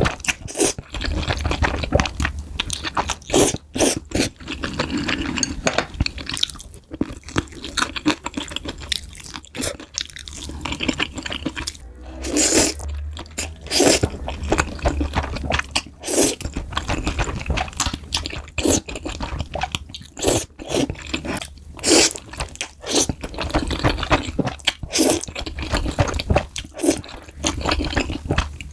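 Close-up eating sounds: a person chewing food, with frequent sharp crunching and wet smacking noises in an irregular run.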